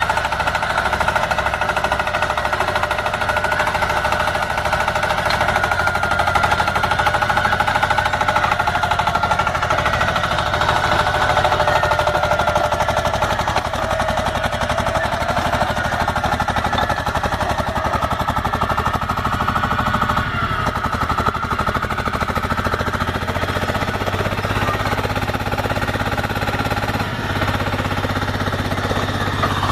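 KY100 borehole drilling rig drilling: steady, rapid hammering with no let-up.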